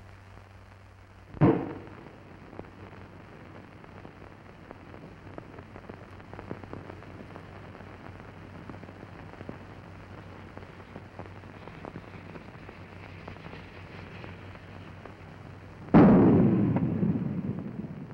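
A 60 mm mortar shell bursting on impact near the end: a sudden loud blast that dies away over about two seconds. About a second and a half in there is one short, sharp report, and between the two only the steady crackling hiss of an old film soundtrack.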